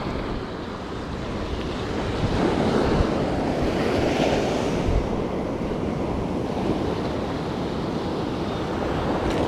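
Ocean surf washing up on a sandy beach, swelling to its loudest a few seconds in as a wave breaks, with wind buffeting the microphone.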